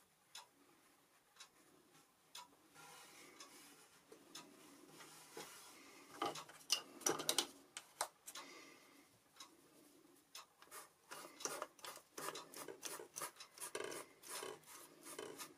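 Scratchy rubbing and tapping of a paintbrush working watercolour paint, heaviest about six to eight seconds in and again through the last five seconds. Under it a clock ticks about once a second.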